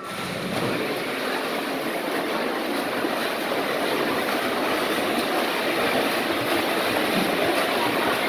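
Swimmers splashing through butterfly just after the racing dive, a steady wash of water noise echoing in an indoor pool hall, slowly growing a little louder.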